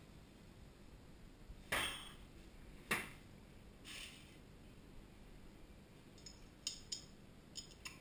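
Two sharp knocks, then a softer one, followed by a run of light metallic clicks as steel crown caps are handled from a bowl and set into a beer bottle capper.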